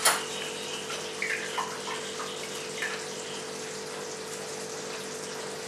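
Steady kitchen background hiss with a faint steady hum, and a few faint soft sounds between about one and three seconds in.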